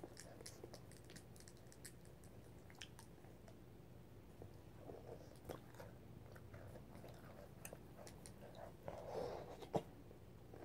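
Faint crunching and chewing of crispy M&M's candies in the mouth, with many small crackling clicks. A brief louder rustle and one sharp click come near the end.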